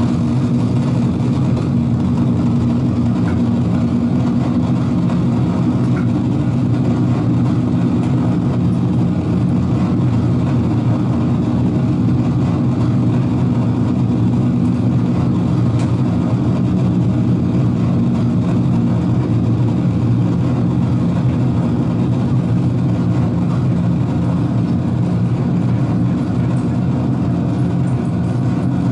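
Dark ambient noise drone from a live electronic setup of patch-cabled synthesizer modules: a loud, steady low rumble of layered hum tones with a hiss above it.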